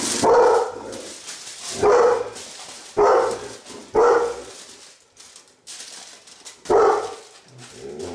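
A dog barking about five times at irregular intervals, with a lull in the middle, over aluminium foil crinkling as it is wrapped.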